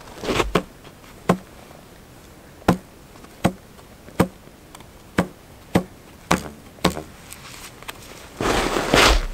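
The string of a small sinew-backed Inuit bow being drawn and let go, giving a sharp snap with a short low twang about once a second. Near the end there is a longer rustling noise.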